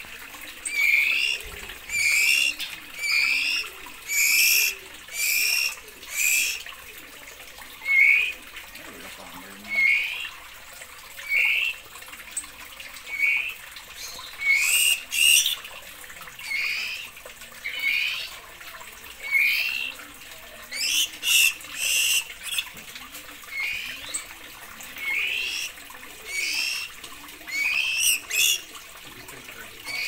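Young caged songbird calling: a short call repeated about once a second, now and then two in quick succession.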